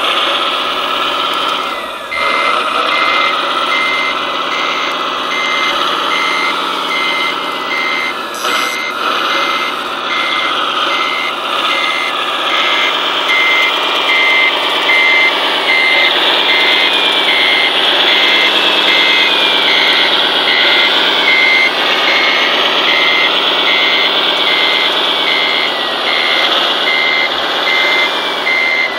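RC scale truck's onboard sound module playing a diesel engine that rises and falls in revs, with an electronic reversing beeper that starts about two seconds in and beeps at an even pace.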